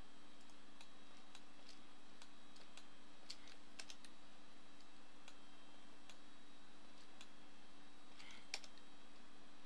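Scattered light clicks of a computer mouse and keyboard, a cluster a few seconds in and a sharper one near the end, over a steady low hum.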